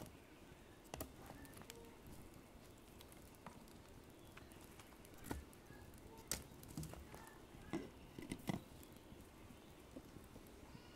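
Quiet open-air wood-fire cooking: a faint steady hiss with scattered light clicks and knocks, a few stronger ones about halfway through and near the end.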